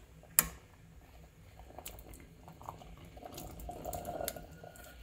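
A single sharp knock about half a second in, then canned chickpeas tipped from the tin, plopping and splashing into a saucepan of thin tomato sauce for a second or so.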